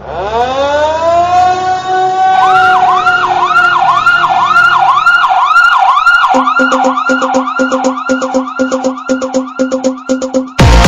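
Siren sound effect in an edited soundtrack: a tone rises from silence, then warbles up and down about two to three times a second. From about six seconds in, a steady electronic pulsing beep joins. Loud electronic music with heavy bass hits just before the end.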